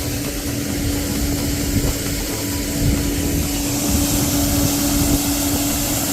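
Farm tractor's diesel engine running steadily while driving, a constant drone with a steady hum.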